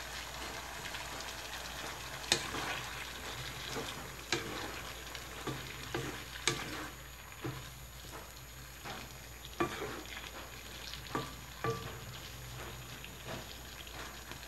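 Wooden spatula stirring a simmering adobo of chicken liver, gizzards and vegetables in a stone-coated wok, with sharp knocks and scrapes against the pan every second or two from about two seconds in. A low, steady sizzle runs under it.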